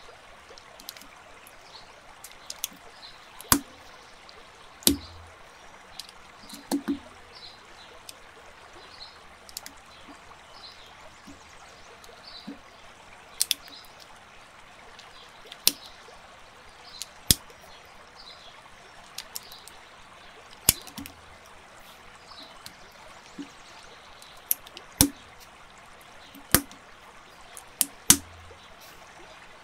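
Sharp plastic clicks and taps, irregular, every second or two, some with a short dull knock, over a steady hiss: Lego-style bricks and minifigure parts being handled and snapped together.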